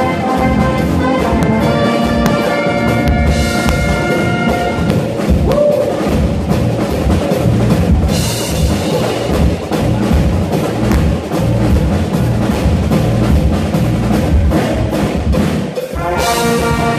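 A live frevo band plays: saxophones and brass carry a fast melody over pounding bass drums. About five seconds in the horns drop out, leaving a drum break with a cymbal crash around eight seconds. The horns come back in with another crash near the end.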